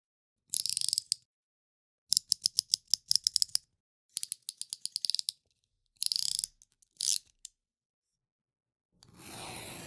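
Utility knife's blade slider clicking as the blade is pushed out and drawn back, in several runs of quick ratchet clicks, then a longer scraping stroke near the end.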